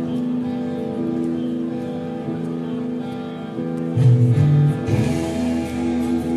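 Live progressive metal band playing: electric guitars holding sustained notes over bass and drums. The music gets louder about four seconds in, with a strong low bass note.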